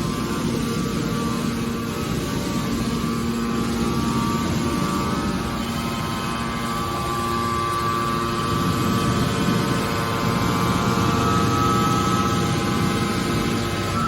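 Hydraulic scrap metal baler running, a steady machine hum with a whine on top that grows somewhat stronger in the second half.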